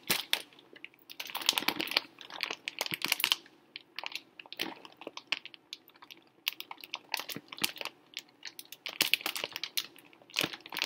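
A clear plastic grain spawn bag of mycelium-colonized rye grain crinkling and rustling as hands grip and turn it, in irregular crisp clicks and crackles that come in clusters.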